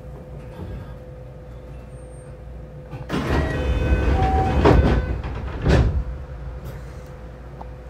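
Electric local train's sliding doors closing while stopped at a station: from about three seconds in, a short burst of chime tones and rushing noise, ending in a thud about three seconds later. Under it is the train's steady hum.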